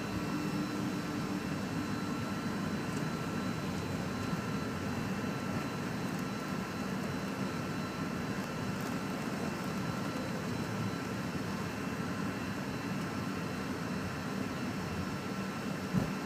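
Steady cabin drone of a McDonnell Douglas MD-83 taxiing, its rear-mounted Pratt & Whitney JT8D engines at taxi power, with faint steady whine tones over the drone. A single short bump near the end.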